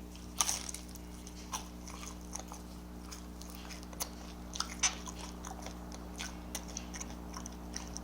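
Close-up eating sounds: a person chewing, with small crunches and wet mouth clicks scattered irregularly, the louder ones about half a second in and near five seconds, over a faint steady hum.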